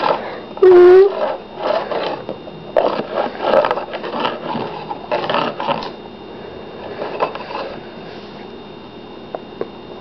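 Rapid scratchy clattering and rustling as a cat paws and bites a plastic stick toy on a hard floor right next to the microphone, dying away about six seconds in. A brief pitched vocal sound comes just before a second in.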